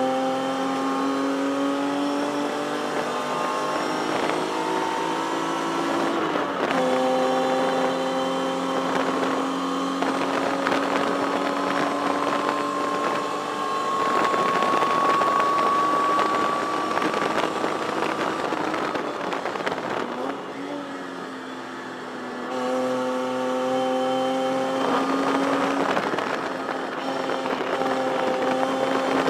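Race-prepared 1973 Datsun 240Z's inline-six engine heard from inside the cockpit, pulling hard with its pitch rising through the gears. There is an upshift about six seconds in, then a lift off the throttle around twenty seconds in before it accelerates again.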